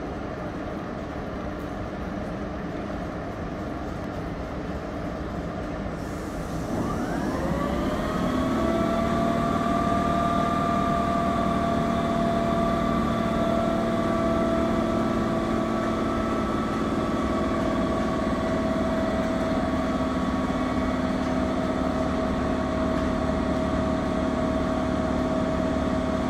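Air compressor of an SNCF BB 22200-class electric locomotive starting up about seven seconds in: a rising whine that settles into a louder steady run of several held tones, over the standing locomotive's steady hum.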